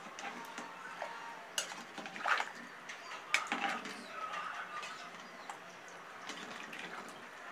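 Long metal spoon stirring rice and chicken pieces through water in an aluminium pressure cooker, clinking and scraping against the pot's sides and bottom, with a few sharper knocks in the first half.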